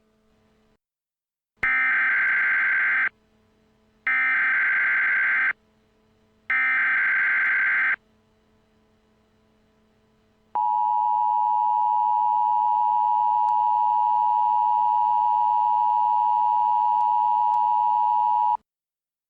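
Emergency Alert System alert opening: three bursts of SAME header data tones, each a harsh digital screech about a second and a half long, then the steady two-tone EAS attention signal held for about eight seconds. The tones mark the start of an emergency alert broadcast.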